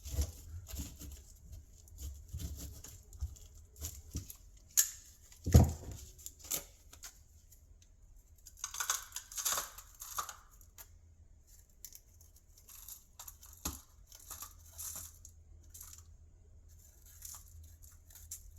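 Hands breaking open a 5-inch firework canister shell: the paper and cardboard casing tearing and crinkling in scattered short bursts, with one louder knock about five and a half seconds in.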